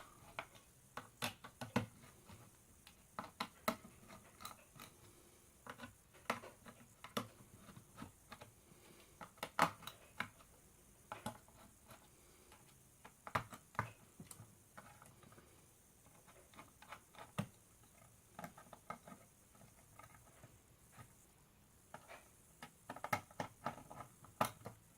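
A screwdriver taking out the screws that hold the cooler on an AMD R9 270 graphics card: faint, irregular clicks and taps of metal on metal, with a small cluster of clicks near the end.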